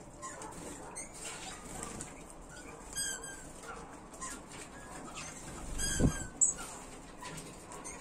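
Small finches chirping in a few short calls, the clearest about three and six seconds in, with wings fluttering. A dull thump about six seconds in, followed by a sharp tick, is the loudest sound.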